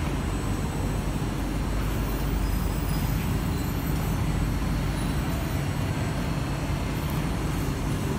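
Steady low rumble and hum of a Kawasaki & CRRC Sifang C151B metro train standing at the platform with its doors open.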